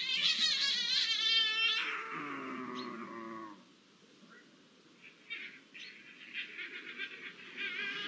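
Iberian lynx mating calls: a loud, wavering yowl for about two seconds, sliding into lower, quieter falling calls. After a short lull, fainter calls start again about five seconds in.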